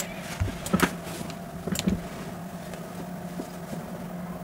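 Steady low electrical background hum, with a couple of short sharp clicks about one and two seconds in.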